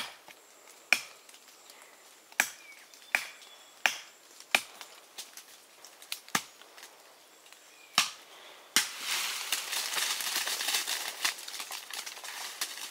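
Tree branches being chopped with a blade: a series of sharp woody chops, about one a second. About nine seconds in, a sudden, dense crackling rustle of leafy twigs and branches takes over.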